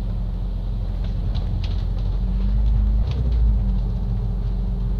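Double-decker bus engine and road rumble, heard from inside the cabin as the bus drives along. It is a steady low drone that swells slightly and rises a little in pitch about two to three seconds in.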